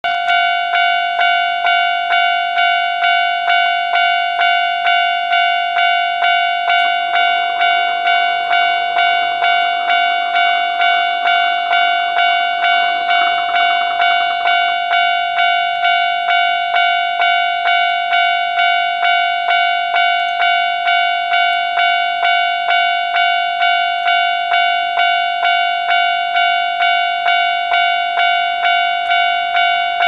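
Railway level-crossing warning bell ringing steadily, about one and a half strokes a second, signalling an approaching train. A softer rushing noise rises under it from about seven to fifteen seconds in.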